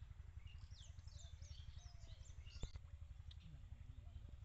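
Birds chirping, many short calls that sweep up and down in pitch, over a steady low rumble, with one sharp click a little past halfway.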